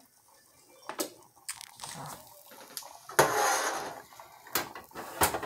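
Handling sounds at a pot of risotto on the stove: a few sharp clicks and knocks, and a short scraping rush a little past three seconds in, the loudest part.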